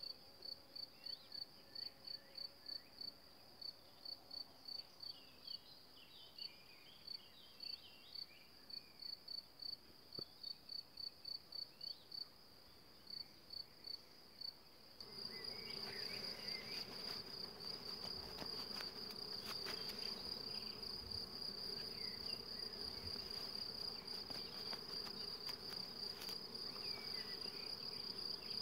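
A cricket chirps at an even pace of about three chirps a second, with faint bird calls. About halfway through, the chirping turns into a steady high trill, honeybees start buzzing, and a few light clicks are heard.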